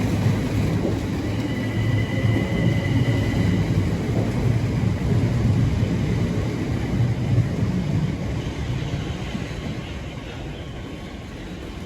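Passenger train running past on the line, a steady low rumble of wheels and motors with a brief high whine about two seconds in, fading away over the last few seconds.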